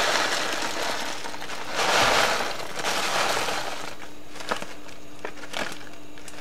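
Dry macaroni and cheese mix poured from a pouch into a pot of water: a rushing rattle of pasta and powder. It comes in surges at the start and about two and three seconds in, then a few light ticks.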